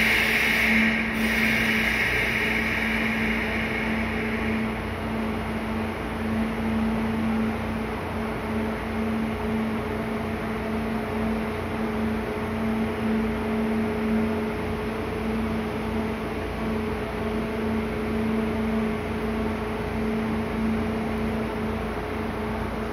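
Steady electrical hum from a stationary Kintetsu Urban Liner Plus express train's onboard equipment, with two held tones, one low and one about twice as high. A hiss at the start fades out about four seconds in.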